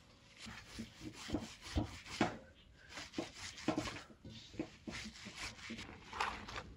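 Hands rubbing and kneading sugared rose petals in a bowl, crushing them into rose jam: an uneven run of short rubbing strokes.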